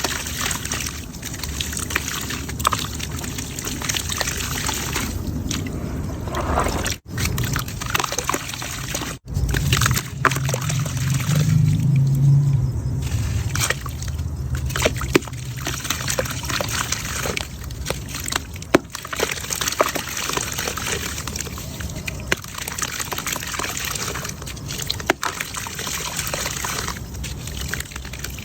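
Crumbling chunks of wet red mud and concrete dropping into water, a continuous crackling mixed with trickling and sloshing, with many small crumbles and splashes.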